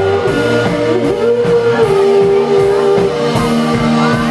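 Live rock band playing electric guitars over a steady beat, with a held lead note that slides up and down in pitch.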